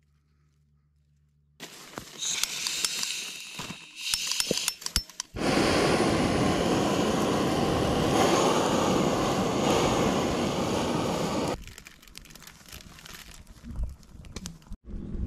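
Handheld butane gas torch hissing steadily for about six seconds as it lights a campfire of kindling and split wood, then cutting off abruptly. Before it come clicks and rustling as the wood and torch are handled, and after it the young wood fire crackles faintly.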